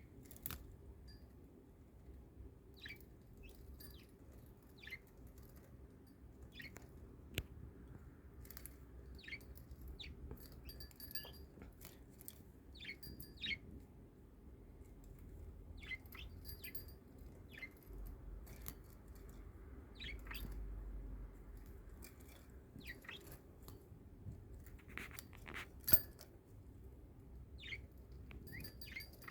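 Budgerigar giving short, soft chirps scattered irregularly, with a few sharp clicks, one louder click near the end.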